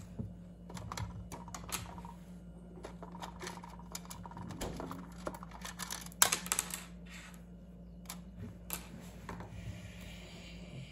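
Scattered light clicks and taps of small plastic toy figures and props being handled on a wooden tabletop, with one sharper knock about six seconds in. A steady low hum sits underneath.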